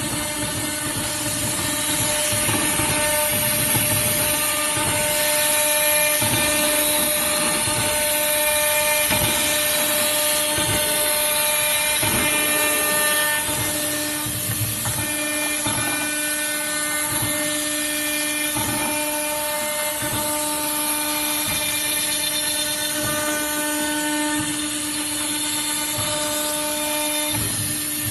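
Small CNC router engraving aluminum: the spindle runs steadily while cutting, with whining tones from the machine that drop out and come back every few seconds as the cutting head moves.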